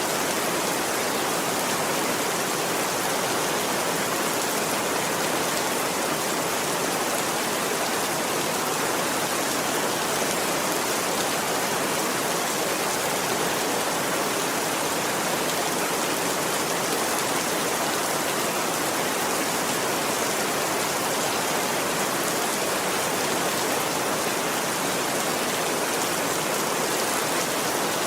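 Steady rain falling, an even, unbroken hiss with no thunder or other sudden sounds.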